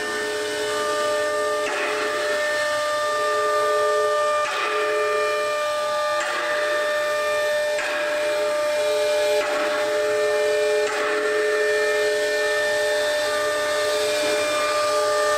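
CNC router spindle cutting a door panel into a wooden board: a steady high whine made of several held tones, which come and go as the cut changes. Rushes of cutting hiss come every second or two as the bit moves along the groove.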